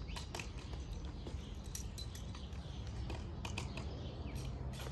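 Scattered light clicks and knocks of tools and metal parts as the exhaust is taken off a 2014 Kawasaki KX100 two-stroke dirt bike, over a steady low rumble.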